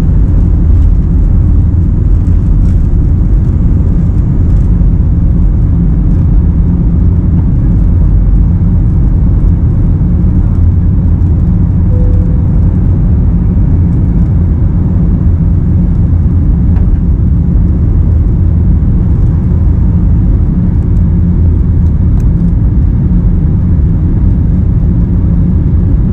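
Cabin noise of an Airbus A321-200 at takeoff thrust, heard from a window seat over the wing: a steady, loud, low roar from the engines and airflow that does not let up through the end of the takeoff roll and the initial climb.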